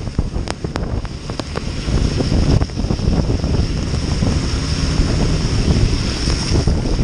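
Heavy wind noise buffeting the microphone of a motorcycle rider's action camera at road speed in heavy rain: a steady loud rumble and hiss, with a few sharp ticks in the first couple of seconds from raindrops striking.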